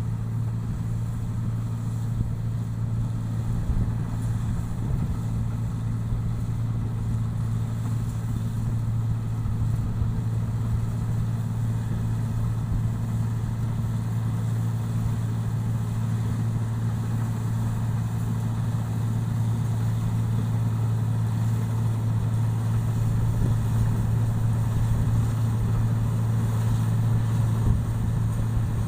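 Engine-driven rice machine running steadily, a constant low hum that grows slightly louder toward the end.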